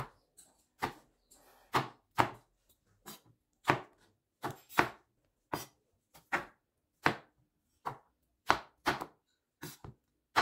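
Chef's knife chopping tomatoes on a bamboo cutting board: a sharp knock each time the blade goes through and hits the board, irregularly spaced at about one to two cuts a second.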